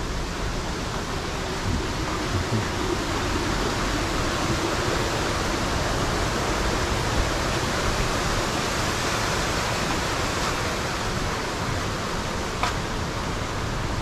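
Strong wind blowing steadily, a continuous even rushing hiss, with one faint click near the end.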